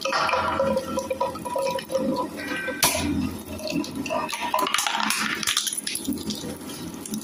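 Plastic waste shredder running and chopping plastic, with irregular clattering and a sharp crack about three seconds in.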